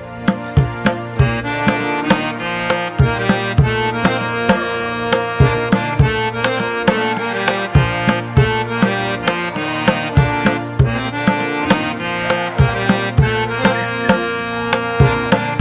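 Instrumental music with a quick, steady percussion beat under sustained melodic instruments.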